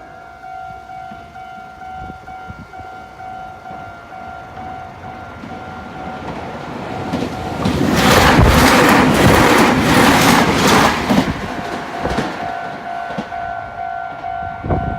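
Japanese level-crossing warning bell ringing in a steady repeating two-tone pattern as a Meitetsu Seto Line express electric train runs over the crossing. The train is loudest for about four seconds midway, its wheels clattering rhythmically over the rail joints.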